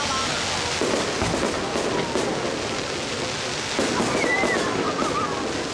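Aerial fireworks shells bursting: a continuous crackle with heavier booms about a second in and again near four seconds.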